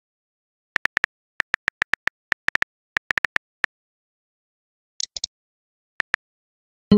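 Phone keyboard typing sound effects of a text-chat app: clusters of quick, crisp tap clicks, several a second, with a brief higher swishing blip about five seconds in and two more taps after it. A louder pitched sound cuts in at the very end.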